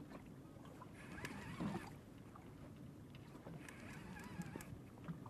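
Faint animal calls with a wavering pitch, heard twice: about a second in and again around four seconds, over low background hiss.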